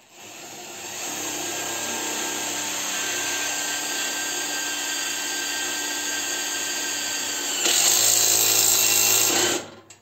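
Cordless drill boring into a steel-tube frame. The motor runs steadily for about nine seconds, gets louder near the end, then stops.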